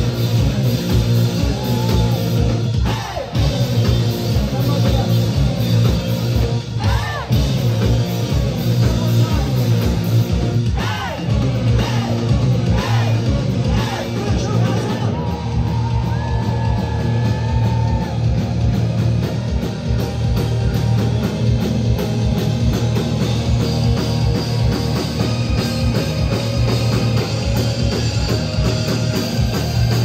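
Rock band playing live at full volume: electric guitars over a steady drum kit beat, with some singing.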